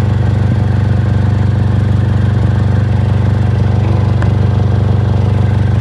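2006 Honda Accord's 2.4-litre four-cylinder engine idling steadily, heard close to the exhaust with an even low pulse. The exhaust is leaking at two bad welds where a metal anti-theft rod was welded onto the catalytic converter.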